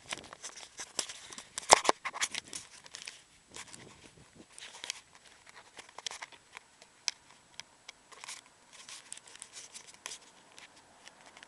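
Irregular crackling and rustling of the handheld camera being handled and carried on a walk, a dense run of sharp clicks with the loudest crack about two seconds in.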